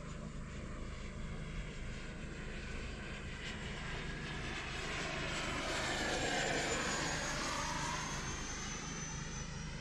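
Electric ducted fan of an FMS F/A-18 Super Hornet RC jet flying past, a rushing whine that swells to its loudest about six to seven seconds in. Its high whine drops in pitch as it goes by.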